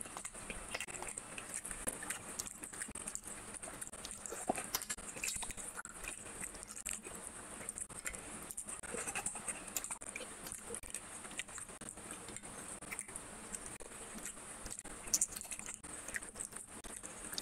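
A person eating fish head curry by hand: wet chewing, biting and mouth clicks as fish and curry are picked apart with the fingers and eaten, in many small irregular clicks over a steady high hiss.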